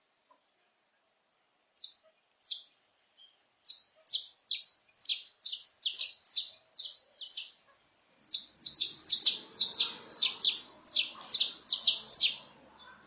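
Male saffron finch singing: two single high notes, then a fast run of short, sharp chirping notes, a brief pause near the middle, and a second, denser run of notes.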